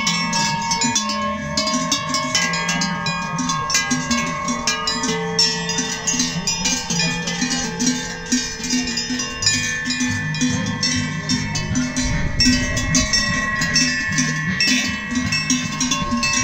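Large brass cowbells on grazing cows clanking and ringing continuously, several bells overlapping at uneven intervals as the cows move their heads. A low rumble joins about twelve seconds in.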